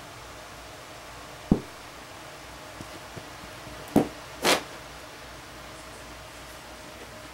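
Pet skunk's defensive warning display: a dull thump about a second and a half in, then a sharper thump near the middle, followed at once by a short hiss-like huff.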